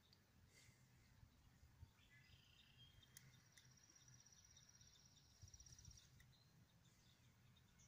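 Near silence outdoors with faint distant bird chirps; from about three and a half seconds in, a high, rapid trill runs for a couple of seconds.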